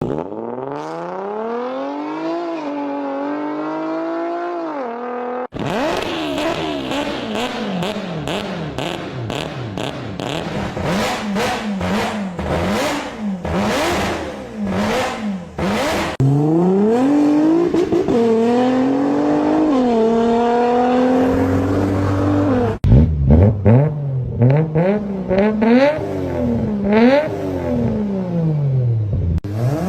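A run of separate clips of car engines revving up and down through the gears, one clip after another with abrupt cuts, one with rapid pops and crackles along with the revving.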